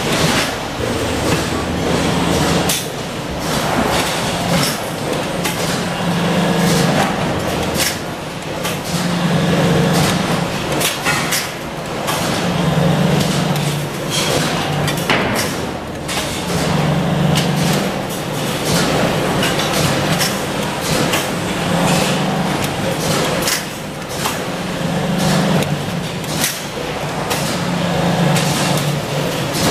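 A press brake working steel dish-rack panels: a low machine hum swells and fades every few seconds as the ram cycles, over frequent metal clanks and knocks from the parts being handled.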